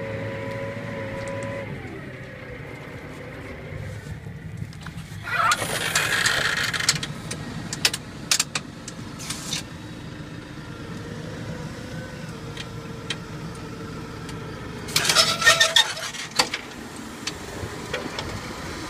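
Tractor ploughing: a steady engine hum under a low rumble, with scattered ticks and clicks as soil and clods scrape over the steel plough bodies. Two louder rushing bursts come about five and fifteen seconds in.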